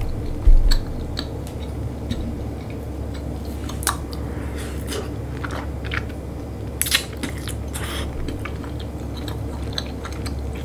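Close-miked chewing and biting of food, with scattered short crunchy clicks, the sharpest about four and seven seconds in, over a steady low hum. Two dull thumps come right at the start.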